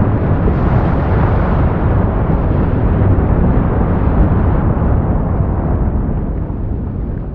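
A deep, steady rumble of dense noise with no distinct tone, heaviest in the low end, growing gradually quieter over the last second or so.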